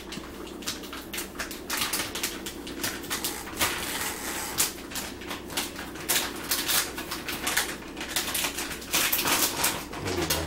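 Rapid, irregular clicking from the control dial of a Chefman air fryer being turned by hand, over a low steady hum.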